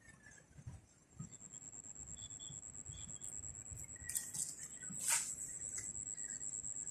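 A steady, high-pitched insect trill, with a few light clicks and one sharper click about five seconds in.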